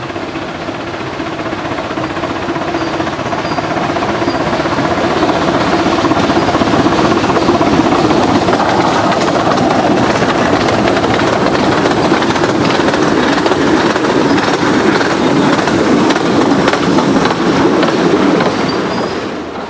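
15-inch-gauge steam locomotive hauling a train of coaches past at close range, with its exhaust and the wheels on the rails. It grows louder over the first several seconds as it approaches, then stays loud while the engine and coaches go by.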